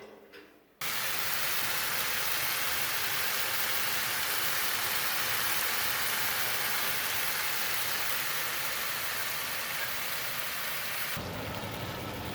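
Food sizzling in a hot frying pan on high heat, starting suddenly about a second in as it hits the pan, then a steady loud sizzle that turns duller near the end.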